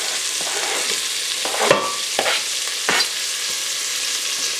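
Chopped onions and diced bacon sizzling in rendered bacon fat in a pot, a steady frying hiss. A utensil scrapes and knocks against the pot about three times in the middle as the onions are stirred in.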